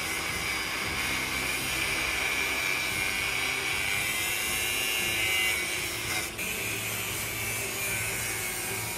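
Angle grinder cutting steel: the abrasive disc grinds along the edge of a safe's door with a steady high whine, dipping briefly about six seconds in.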